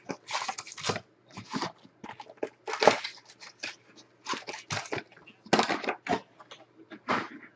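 Plastic shrink-wrap and foil card-pack wrappers crinkling and tearing in quick, irregular bursts as a 2017 Bowman Chrome baseball card box is unwrapped and its packs are pulled out.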